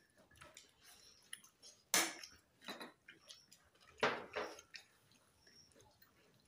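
Eating sounds at a table: spoons clinking and scraping on plates and food being chewed, in short separate clicks and scrapes. The two loudest come about two seconds and about four seconds in.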